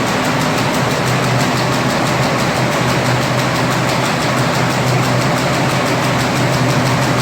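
Perforated paper bag making machine running steadily: a continuous hum with a fast, even rhythm.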